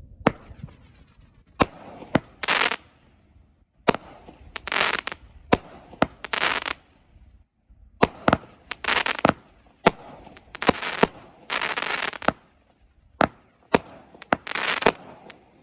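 16-shot consumer firework cake firing its shots one after another, about one a second: each sharp launch thump is followed by a burst of crackling as the comets break.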